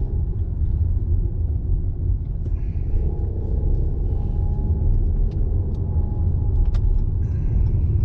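Steady low road rumble inside a moving car's cabin, from tyres and engine while driving, with a single light click about two-thirds of the way through.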